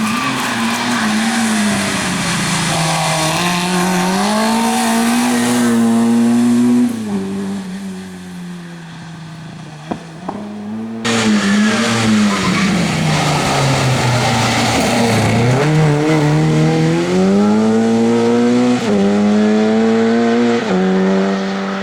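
VW Golf Mk1 rally car's four-cylinder engine driven hard, its pitch rising and falling with the throttle. About seven seconds in the throttle is lifted and the engine falls to a lower, quieter note, with a sharp click near ten seconds, then it comes back on full power. Near the end two upshifts each drop the pitch before it climbs again.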